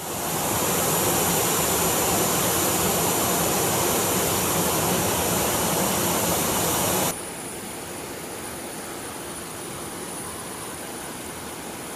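Military jet aircraft engines running, a steady rush with several high whines above it; about seven seconds in it cuts abruptly to a quieter rush with a single high whine.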